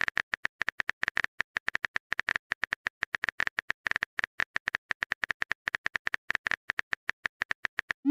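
Keyboard typing sound effect: rapid, irregular clicks at about eight to ten a second, as a chat message is typed out. Right at the end a short rising tone begins.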